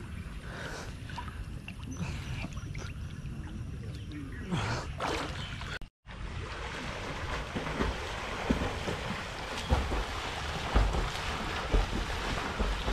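Water splashing and sloshing as people swim in a pond, with low thumps close to the microphone. The sound breaks off briefly about six seconds in, and after that the splashing is denser and louder.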